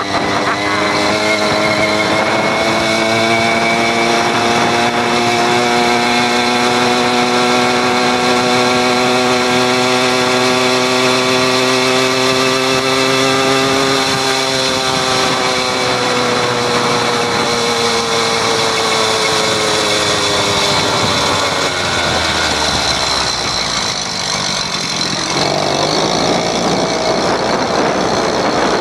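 Small gasoline engine of a motorized bicycle running under way. Its pitch climbs slowly as the bike gathers speed, falls off after about halfway as it slows, then drops lower and rises again near the end.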